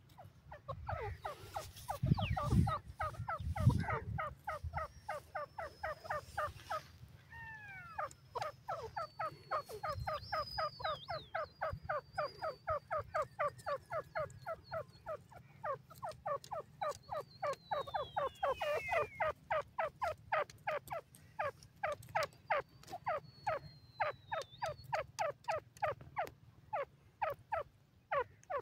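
Grey francolin calling in a long, rapid run of short repeated notes, about three or four a second, with faint high whistling from another small bird above it. A few low thuds come about two to four seconds in.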